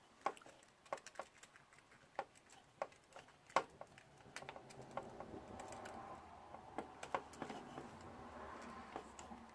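Faint, irregular light clicks and taps of small parts being handled, a few separate ones at first, then a thin run of softer ticks and rustle from about halfway.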